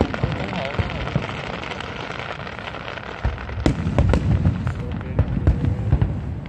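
Aerial fireworks going off: a dense crackle of small bursts, with heavier low booms from about three seconds in.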